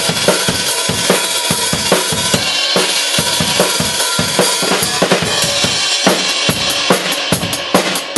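A drum kit played in a fast, busy punk-rock beat: kick and snare hits several times a second under a constant wash of cymbals.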